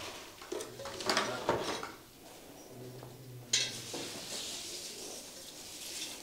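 Hard objects clattering and scraping as they are moved. A sharp knock comes about three and a half seconds in, followed by a couple of seconds of rustling.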